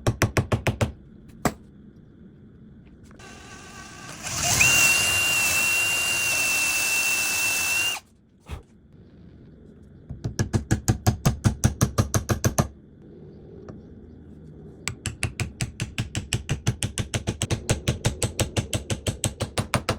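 Power tool work on wood: a drill runs with a steady whine for about three seconds. Two long runs of rapid clicking, about ten clicks a second, follow.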